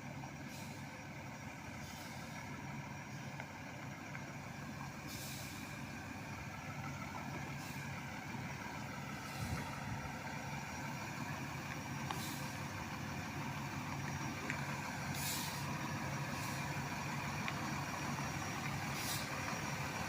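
Heavy truck engine running steadily, with short air hisses every few seconds.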